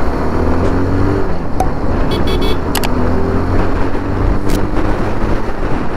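Bajaj Pulsar 220F's single-cylinder engine running steadily under way, its note rising and falling a little with the throttle, over road and traffic noise. A few brief sharp clicks come about two to three seconds in.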